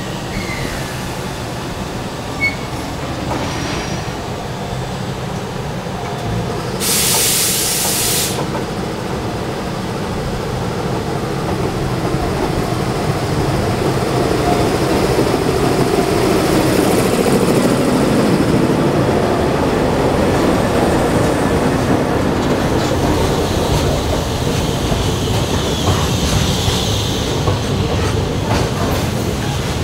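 ED76 electric locomotive and its liquefied-chlorine tank wagons rolling slowly past at low speed as the train arrives, wheels running on the rails and growing louder as the loco draws level. There is a short hiss of air about seven seconds in. A thin wheel squeal and a few rail-joint clicks come as the tank wagons pass near the end.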